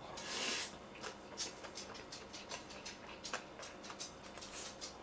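A person slurping in a mouthful of jjapaguri black bean noodles from chopsticks, then chewing with many small wet clicks and smacks close to the microphone.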